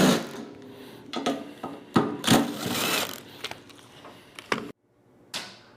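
Power driver whirring in short runs as it backs screws out of an electric heater's lid, with a few clicks between runs.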